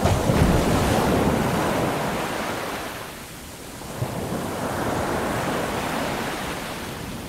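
Ocean surf: waves washing in, loudest at the start, easing off about three seconds in and swelling again.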